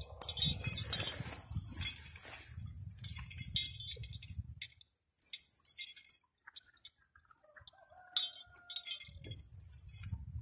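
Young draft colt grazing on dry grass close by: repeated crisp tearing and crunching of the grass as it crops and chews, with light clinking from its tether chain. A low rumbling comes and goes, in the first half and again near the end.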